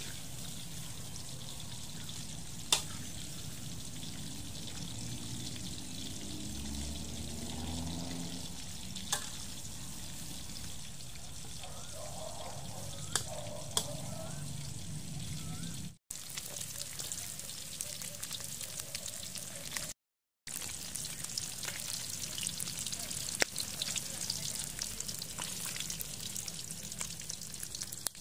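Food sizzling in a wok over a wood fire: a steady frying hiss with occasional sharp clicks and knocks. The sound cuts out briefly twice.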